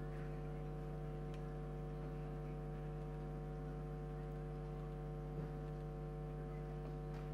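Steady electrical mains hum and buzz: a constant low drone with a stack of even overtones, unchanging throughout, with a few faint clicks.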